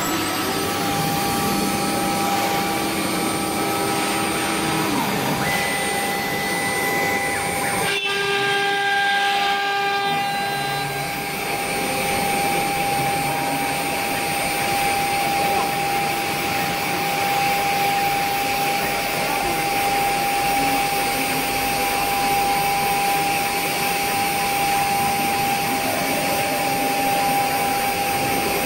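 CNC router spindle running at steady speed with a high whine while its bit engraves a fibreboard sheet, the carving job resumed after a power failure. About eight seconds in, the tone briefly shifts as the machine changes its motion.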